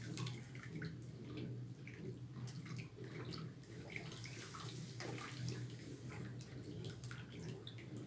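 Thin, liquid homemade tallow-soap mixture sloshing and splashing as it is stirred continuously with a spoon in an enamel basin, with many small irregular splashes over a steady low hum.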